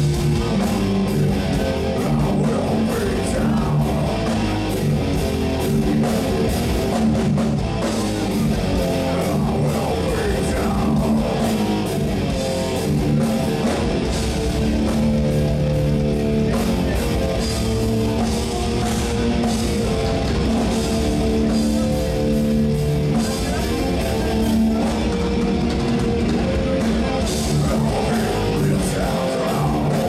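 Heavy metal band playing live: electric guitars, bass guitar and drum kit, steady and loud throughout.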